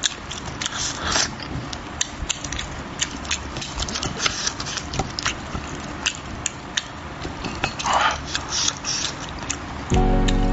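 Close-up eating sounds: wet chewing, lip smacks and sucking as spicy braised fish is eaten off the bone, a quick run of short clicks and smacks. Music comes in just before the end.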